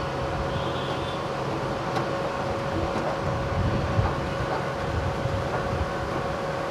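Steady mechanical whir and hum with a constant mid-pitched tone, broken only by a few faint light clicks.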